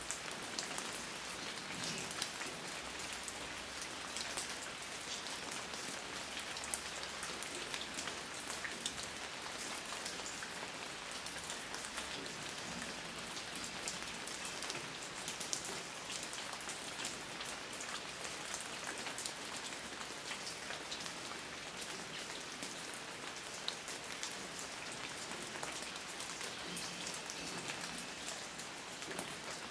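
Steady rain falling, a continuous hiss with many small drops pattering on a surface.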